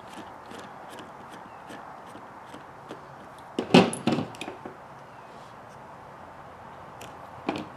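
Small clicks and knocks of a hex driver and RC axle parts being handled on a work surface as a screw is taken out of the axle bracket. A louder clatter of several knocks comes just before 4 s in, and a single sharp knock near the end.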